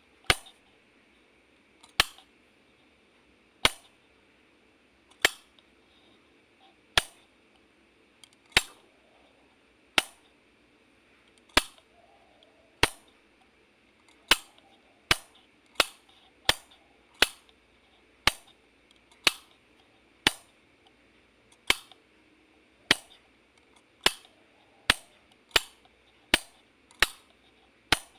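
Wall light switch being flicked on and off, a sharp single click each time. The clicks come about every second and a half at first, then quicken to nearly one a second in the second half.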